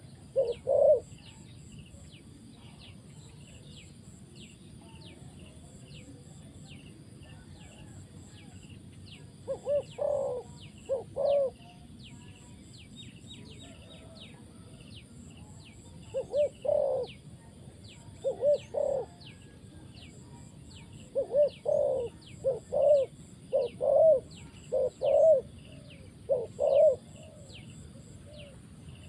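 Spotted dove cooing in short phrases of two or three low notes, with long pauses between phrases at first and then a quick run of phrases in the second half. Steady high chirping, about two a second, carries on underneath.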